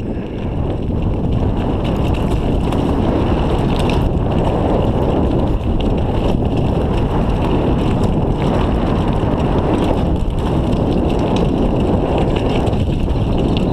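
Riding noise from a mountain bike on a gravel forest track: wind rushing over the camera microphone and tyres rolling over loose stones, steady throughout, with a few short knocks from bumps in the track.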